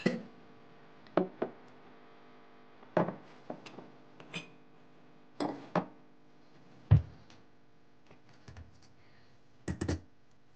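Ceramic mugs being set down one after another on a stone countertop: a series of sharp clinks and knocks, with a heavier, deeper thump about seven seconds in and a quick double knock near the end. A faint steady hum runs underneath.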